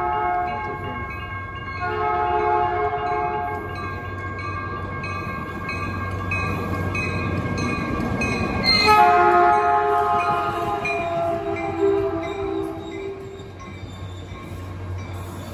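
Caltrain commuter train sounding its horn in several blasts as it approaches and passes. The horn's pitch drops as the leading cab car goes by, about nine seconds in. Rumble and wheel noise build as the train draws near.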